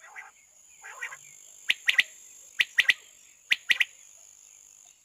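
Female rain quail calling: two softer, raspy notes first, then three loud bursts of three short, sharp notes each, about a second apart.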